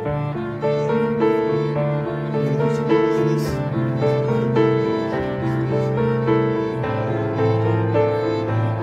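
Instrumental background music in a classical style, piano with bowed strings, playing slow held notes over a sustained bass line.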